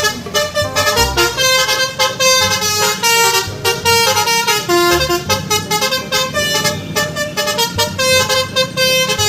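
Basuri multi-tone "telolet" bus horn playing a quick melody of short notes that jump in pitch, with low thumps about once a second underneath.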